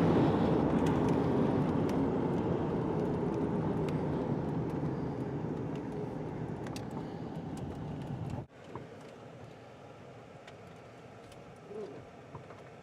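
Road and engine noise inside a moving vehicle, fading steadily as it slows to a stop. It cuts off abruptly about eight seconds in, leaving a quiet background with a few faint clicks.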